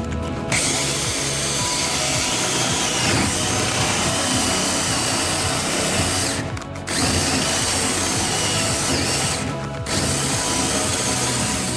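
Power drill boring hinge holes into cabinet doors, running in three long spells with two short breaks, the motor whining under load.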